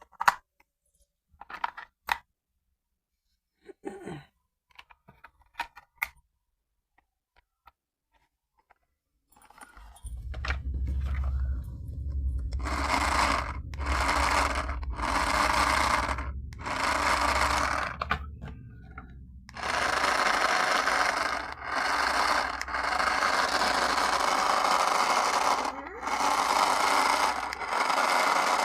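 Light clicks and rustles of handling, then the toy RC car's small electric drive motor and gears whirring in short bursts of about a second, then in longer runs of several seconds.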